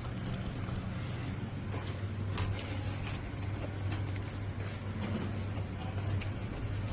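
Sliding window sash pushed along its broken rail: scattered knocks and scraping clicks from the damaged track, over a steady low hum.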